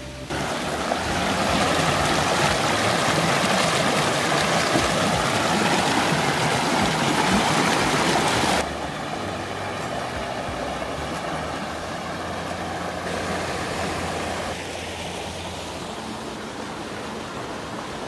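Shallow mountain stream rushing over rocks, a loud, even wash of water. About eight and a half seconds in it drops to a softer, quieter flow.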